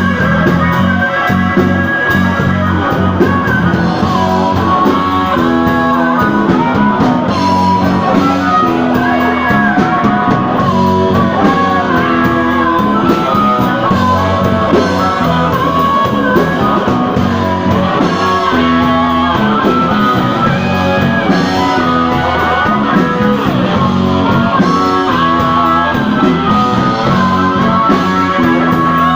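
Live blues-rock band playing, with a guitar carrying a bending melodic line over a steady bass.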